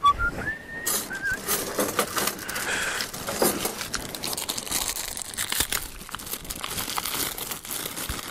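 Close, irregular crinkling and rustling with many small crackles, as of something being handled near the microphone. It opens with a few short, high whistled notes that slide up and down.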